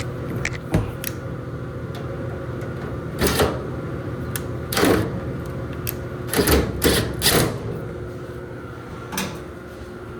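Short clicks and clattering handling noises of metal parts of a Samsung dryer's cabinet and screws being fitted during reassembly. There is a single click early, then several brief clatters, three close together about six to seven and a half seconds in, over a steady hum.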